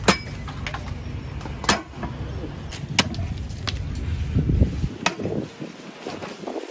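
Steel pounding rod with a flat disc end striking ice in a steel drum: sharp clanking knocks about one to two seconds apart, with smaller knocks between, as the ice is crushed and packed down. Under the first few seconds there is a low rumble that stops about five seconds in.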